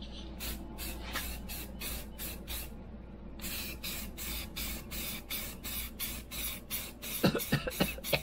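Aerosol can of filler primer spraying in short hissing bursts, about three a second, with a brief pause about three seconds in.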